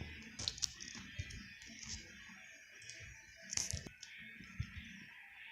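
Glitter slime being squished and stretched by hand, making scattered small clicks and a few sharper pops.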